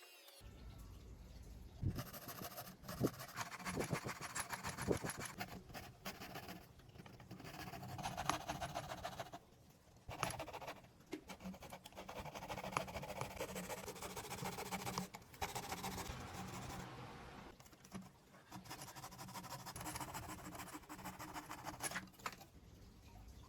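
Intermittent scraping and rubbing in stretches of a few seconds, broken by short pauses, with a few light knocks.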